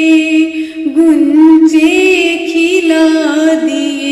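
A naat, Urdu devotional poetry, sung by a single voice, drawing out long held notes with wavering ornaments.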